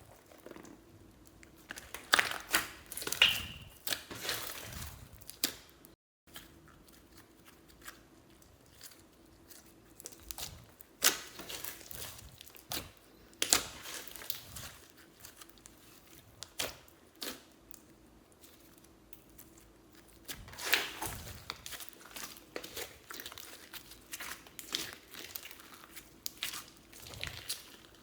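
Slime being worked by hand with makeup and glitter mixed in, making irregular sticky crackles, crinkles and sharp clicks and pops.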